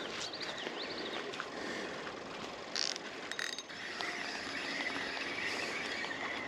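Fishing reel being cranked in, its gears whirring steadily, with a few clicks from the reel earlier on.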